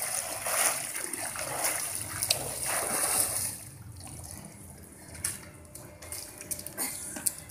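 Pool water splashing and sloshing as a swimmer surges to the edge and climbs out; the splashing dies down about halfway through, leaving quieter trickling with a few small knocks.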